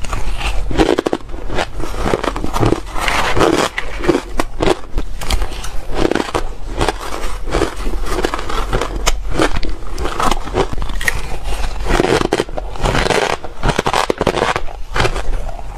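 Crushed ice being chewed close to the microphone: continuous dense crunching and crackling, with a spoon scooping through the bowl of ice.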